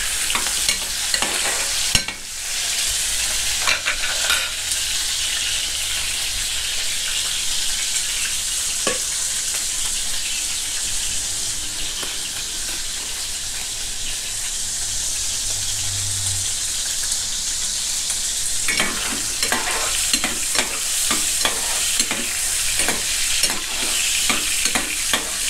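Pork fat sizzling steadily as it renders in hot oil in a steel wok. A few single clinks come early, and through the last seven seconds a metal spatula scrapes and clacks repeatedly against the pan as the fat is stirred.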